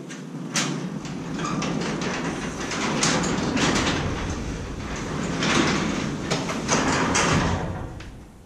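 Metal overhead garage door coming down to close: a rattling rumble with many small clicks that dies away near the end as the door shuts.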